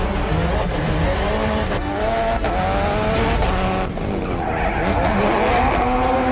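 Rally-prepared car being drifted hard: the engine revs climb and fall repeatedly, with tyres skidding and squealing as the car slides.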